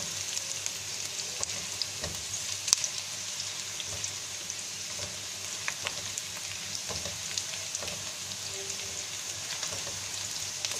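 Chopped onion sizzling as it sautés in hot olive oil in a pan: a steady high hiss with scattered small pops and crackles.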